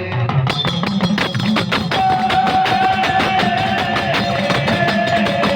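Instrumental break in a Gujarati devotional folk song (jagar): fast, steady percussion under a melody line, with one long held note coming in about two seconds in and slowly sinking in pitch.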